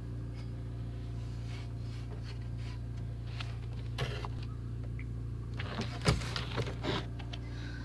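Rabbit eating shredded greens: crisp crunching and rustling of the leaves, busiest in the second half and loudest about six seconds in, over a steady low hum.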